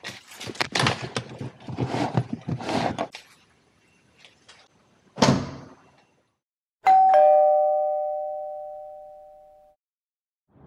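Rustling and knocking of gear being handled in a hatchback's packed boot, then one loud slam about five seconds in as the tailgate shuts. A two-note ding-dong chime follows, falling in pitch and fading out over about three seconds.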